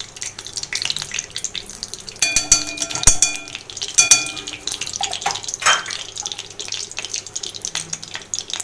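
A metal spoon scraping and clinking against a hot pan as ghee is spooned in. There is a ringing clink about two seconds in and a shorter one about four seconds in.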